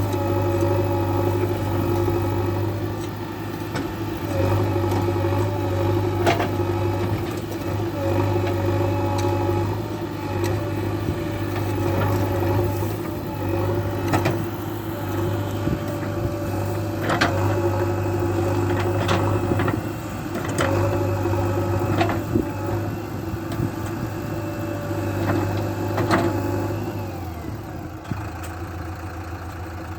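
A steady engine hum, broken by sharp knocks every second or two. Near the end the hum changes and falls to a lower, thinner note.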